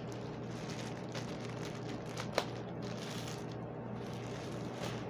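Clear plastic bag crinkling and rustling as a padded laptop sleeve is pulled out of it, with one sharp click a little over two seconds in.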